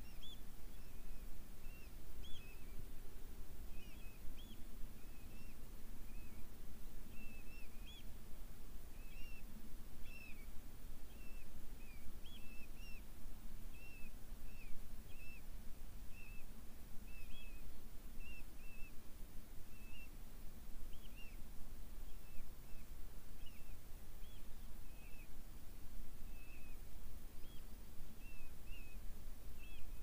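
A bird calling over and over in short, high chirps, about two a second, over a low steady rumble.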